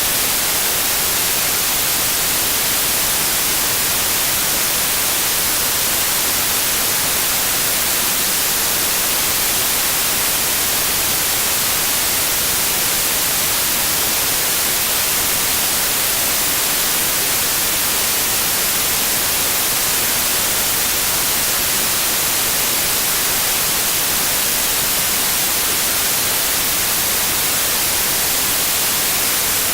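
Steady white noise, an even hiss that is brightest in the high end and does not change, with a faint steady 528 Hz tone mixed in underneath.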